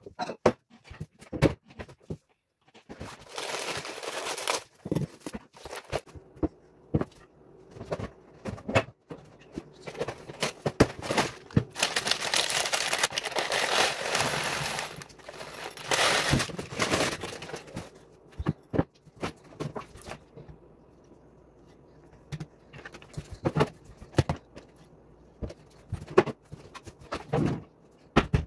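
Dry cereal pouring from a crinkling plastic bag into a bowl, a dense rushing rattle for a few seconds in the middle. Short knocks and clatter of a cupboard and dishes come before and after it.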